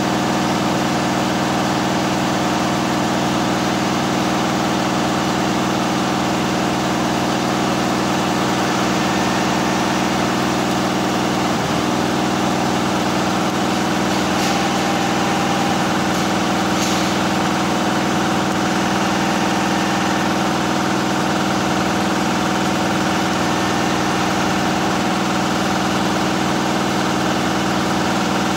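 Richpeace twelve-head flat embroidery machine running steadily, all heads stitching together in a fast, even mechanical chatter over a constant hum.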